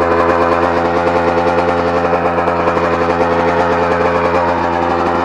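Dirt bike engine running at a steady speed, its pitch holding even without revving.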